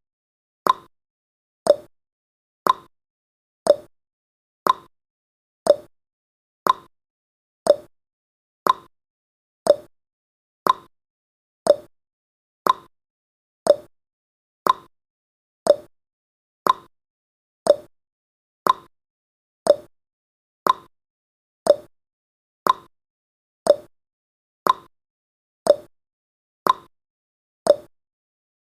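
Clock ticking sound effect of a countdown timer: a short, sharp tick once every second, evenly spaced.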